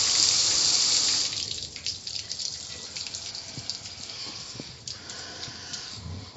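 Water spraying with a steady hiss that stops about a second in, leaving dripping and trickling.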